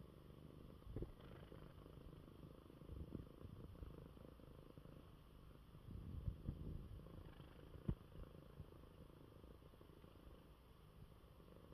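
Faint, steady purring of a domestic cat resting curled up, with a few soft thumps, the loudest about eight seconds in.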